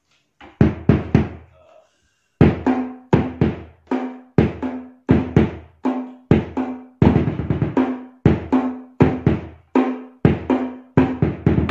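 Hadroh bass drum beaten with two mallets alongside a tam hadroh played by hand, trying out the new drums. A few strokes, a short pause about two seconds in, then a steady hadroh rhythm, with a ringing drum note after many of the beats.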